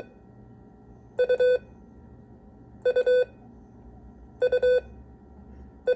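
Morse code tone sending the letter U (dit-dit-dah) again and again: two short beeps and a longer one, repeated about every one and a half seconds, with a fourth repeat starting right at the end.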